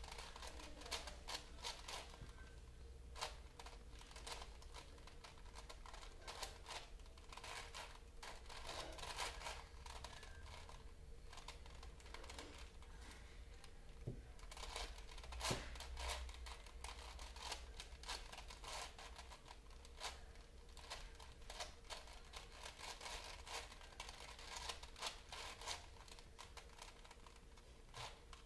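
Deck of playing cards handled and shuffled by hand: irregular soft flicks, snaps and rustles of card on card, over a steady low hum.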